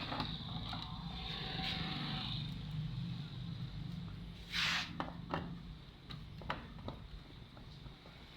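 Handling sounds while an LED TV's back cover is taken off: scattered clicks and scrapes, a hissy scraping in the first couple of seconds and a short louder hiss about halfway through, over a steady low hum.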